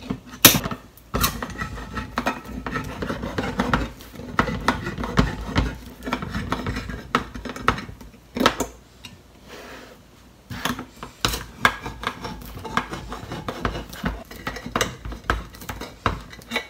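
Hand-held can opener punching into and cutting around the lids of tin cans: a run of quick metallic clicks and scrapes. There is a short pause about nine seconds in before the next can is started.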